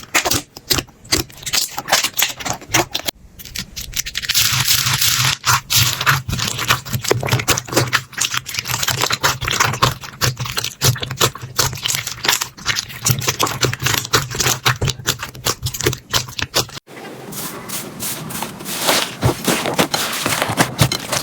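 Slime being squeezed and pressed by hand close to the microphone, making dense crackling, popping and clicking sounds. The texture changes abruptly about three seconds in and again near the end, as one slime clip gives way to the next.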